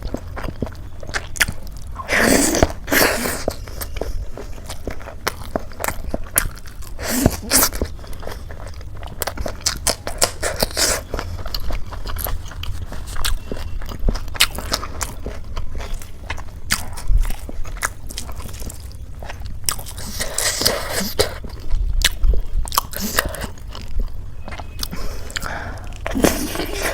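Close-miked eating: biting into and chewing crisp, flaky fried samosa with ghugni, with many small crunching clicks and a few louder bites.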